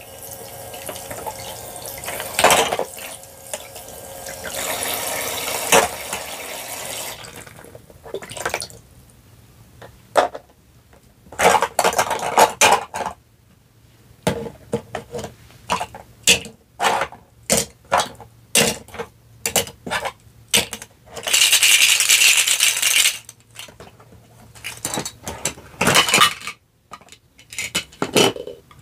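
A toy kitchen sink's faucet runs water over plastic toy vegetables for the first several seconds. After that come many light, sharp plastic clicks and knocks as the toy fruit and vegetables are handled and set into a plastic basket, with one brief hiss a little past the middle.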